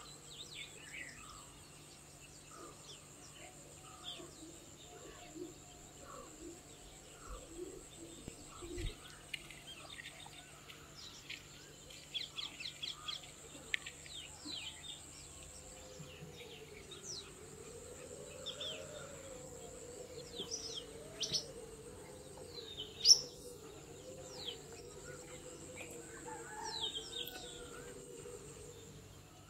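Rural outdoor ambience of many small birds chirping and twittering in scattered short calls, with one sharper call loudest about three-quarters of the way through. A steady high-pitched whine runs underneath, and a low wavering tone comes in during the second half.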